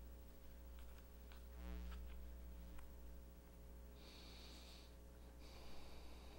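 Near silence in a hushed congregation: a steady low hum, a few faint clicks, and two soft breathy hisses about four and five and a half seconds in.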